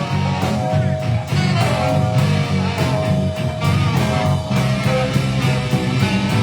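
Live rock band playing an instrumental passage: electric guitar over bass and a steady drum beat.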